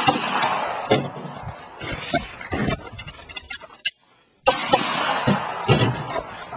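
Glock pistol shots fired in quick succession, in two groups: one near the start and one about four and a half seconds in. Each group of shots is sharp and trails a long echo.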